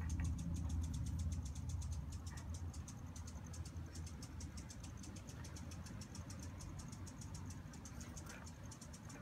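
Ignition coil firing repeatedly across a bolt-and-terminal test spark gap, driven by a test generator: a fast, even ticking of spark snaps. A low hum is also heard at first and fades after about two seconds.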